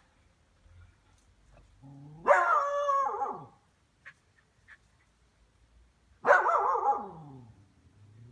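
A dog barking twice during play, about four seconds apart. Each bark is long and drawn out, about a second, and falls in pitch.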